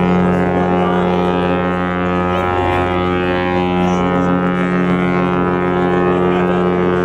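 Cruise ship MSC Meraviglia's horn sounding one long, steady blast of several tones at once. Its low note wavers briefly about two and a half seconds in.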